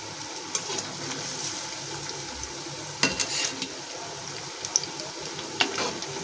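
Kebabs deep-frying in hot oil in a kadhai: a steady sizzle, with a few sharp clicks of a metal slotted spoon against the pan as they are turned, about three seconds in and near the end.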